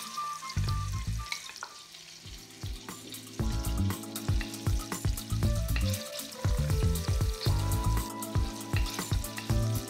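Chopped celery, carrot and onion sizzling in melted butter in a stainless steel pan as they are tipped in and stirred with a wooden spatula. Background music comes in more fully about three seconds in.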